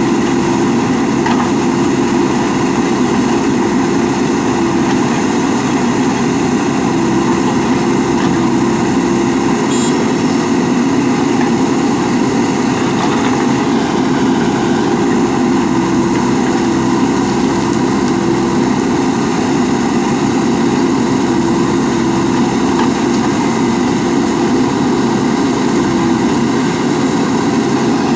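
Heavy diesel engine of a backhoe loader or dump truck running at a steady, unchanging speed, with no revving.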